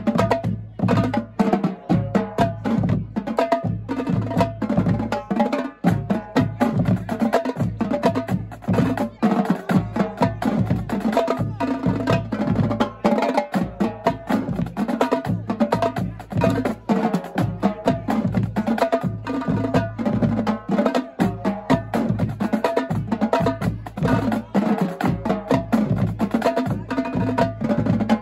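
Marching drumline playing a cadence together: snare drums, tenor drums and tuned bass drums striking in a dense, driving rhythm of several strokes a second without a break.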